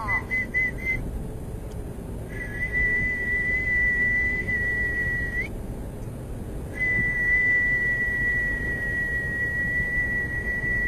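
High, steady whistle: a quick run of short pips, then two long held notes, one of about three seconds and one of about five, each flicking up in pitch as it ends. It is the sound the participants are told to listen to while they move and breathe.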